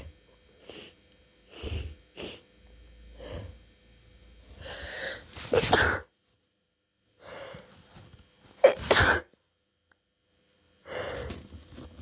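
A person with a cold sneezing twice, each sneeze preceded by a building in-breath. Short sniffing breaths come before the first sneeze, and another in-breath begins near the end.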